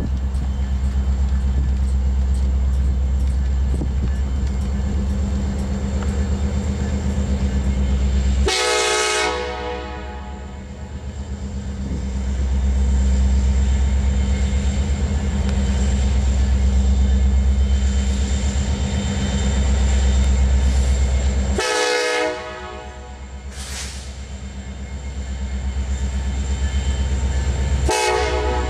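BNSF SD70ACe diesel freight locomotives running past with a steady low rumble. The air horn sounds three times: a long blast about eight seconds in, another about twenty-two seconds in, and a short one near the end. It is a warning for the grade crossing the train is passing.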